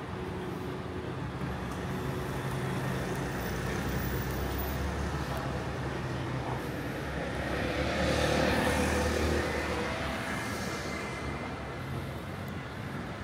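Street traffic: a steady low hum of motor vehicles, with one vehicle passing close that grows louder and fades, loudest about eight seconds in.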